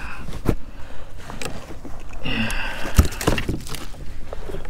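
Scattered knocks and bumps on a plastic fishing kayak as gear and the landing net with a caught speckled trout are handled, the sharpest knock about three seconds in. A brief higher-pitched sound comes a little past two seconds in.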